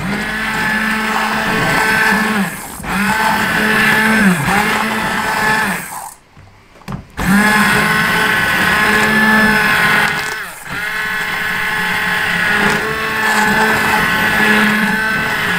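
Hand-held immersion blender chopping cherry pieces in a saucepan of hot cherry glaze. Its motor runs with a steady whine whose pitch sags briefly now and then under load. It stops for about a second midway and then starts again.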